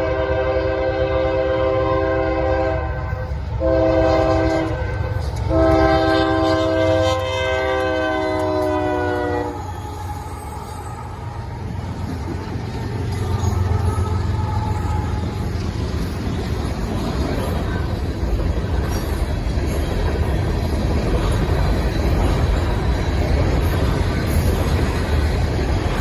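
Freight train locomotive horn blowing at a grade crossing: a long blast, a short one, then a long one that drops in pitch as the lead locomotive passes. From about ten seconds in, the diesel locomotives rumble past, followed by freight cars rolling over the rails with a steady clatter.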